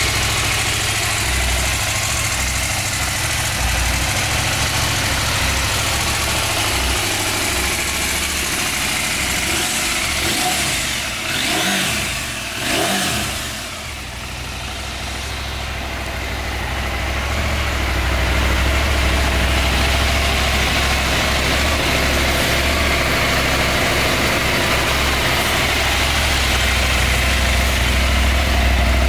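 Husqvarna 901 Norden's 889 cc parallel-twin engine idling steadily, with two short swells about twelve seconds in.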